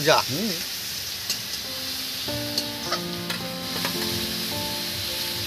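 Food sizzling in hot oil in an iron kadai while a metal spatula stirs it, with a few light clicks of the spatula against the pan. Faint music with held notes comes in about two seconds in.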